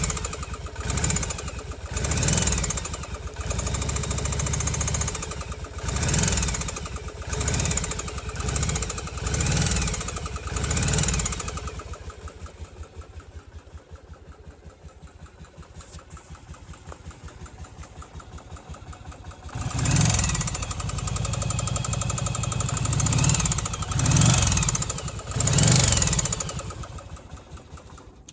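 Yamaha Virago 750's air-cooled V-twin engine being blipped again and again, revs rising and falling, dropping back to a quieter idle for several seconds midway, then revved a few more times. It runs with an engine knock that the owner is showing.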